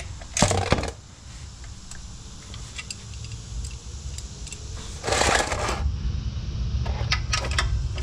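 Ratchet and 17 mm socket clicking and clinking on the oil drain plug under a car. There is a loud clatter about half a second in, a longer rattle about five seconds in and a few quick ticks near the end, over a steady low hum.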